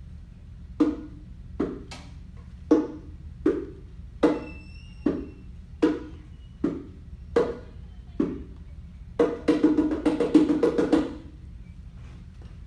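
Bongo drums struck by hand in a slow, even beat of single hits a little under a second apart, then a fast roll of rapid hits near the end.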